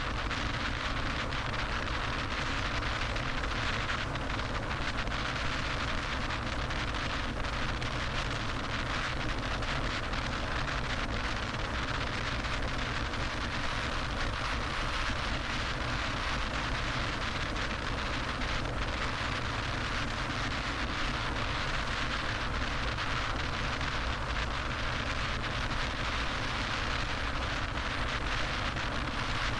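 Steady road and wind noise of a car driving along a freeway, an even rush of tyres and air that does not change.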